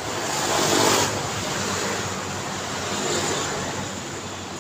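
A motorcycle passing close by: engine and tyre noise rise to a peak just before a second in and fall away sharply as it goes past. A second, fainter vehicle passes about three seconds in, over a steady low hum of distant traffic.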